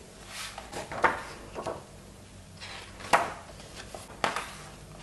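Pages of a large art book being turned by hand: several swishing, flapping sweeps of paper, some with a light knock as the page or hand lands.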